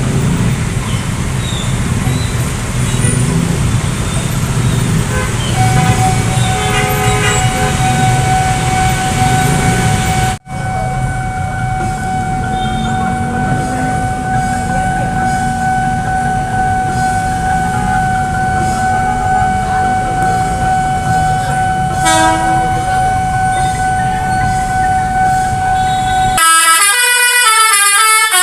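KRL electric commuter train running with a low rumble and a long steady high tone. Near the end a multi-note 'telolet' horn plays a quick tune of stepping notes.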